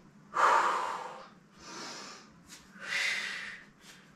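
A woman breathing hard from the effort of weighted sumo squats: three breaths, a loud exhale about half a second in, a quieter breath around two seconds, and another strong breath near three seconds.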